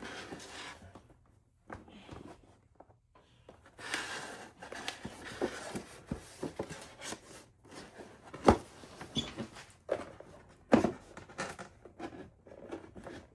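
Hands handling craft pieces and packaging on a work surface: irregular rustling and crinkling with scattered sharp taps and knocks, the loudest about eight and a half seconds in and another near eleven seconds.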